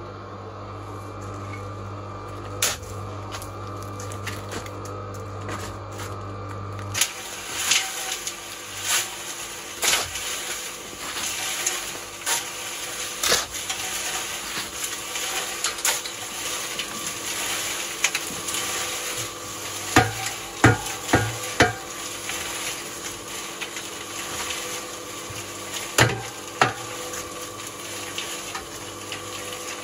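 Metal shovel scraping and scooping loose material from a pile, with repeated scrapes and knocks and a quick run of ringing metallic clanks about twenty seconds in. A low steady hum cuts off about seven seconds in.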